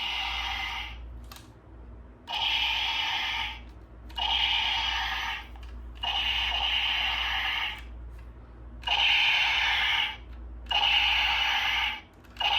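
Electronic toy gun playing its recorded shooting sound effect through a small built-in speaker, one burst of about a second each time the trigger is pulled, repeated about every one and a half to two seconds.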